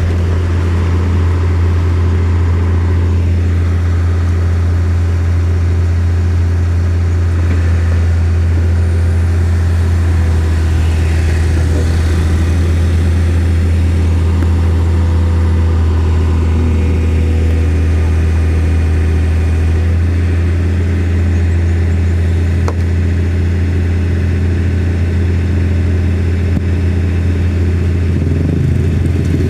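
Engine running steadily close by, a deep constant drone with no change in speed.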